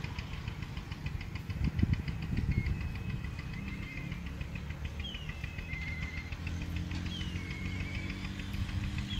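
A low, steady engine drone with a rapid high ticking over it and a couple of thumps about two seconds in. A bird whistles a short call that falls and then levels off, three times: about five, seven and nine seconds in.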